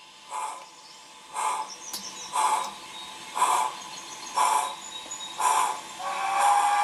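Model steam locomotive No. 50 (ex-Uintah) working slowly, with evenly spaced exhaust chuffs about one a second that grow louder as it approaches. About six seconds in, its whistle begins to sound, a steady tone.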